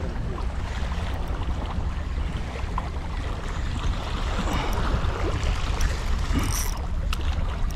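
Wind buffeting the microphone over water lapping and sloshing around a small boat on open sea, a steady low rumble with a hiss of waves.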